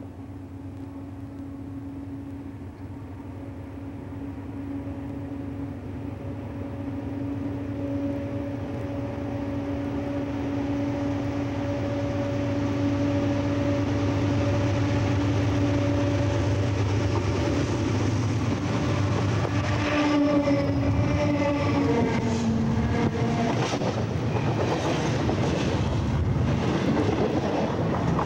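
A CSX diesel freight train approaches along the track, its locomotives' steady hum growing louder for about 13 seconds. The hum's pitch drops about 22 seconds in as they pass directly overhead, heard from between the rails. Wheels then clatter and bang over the rails close above.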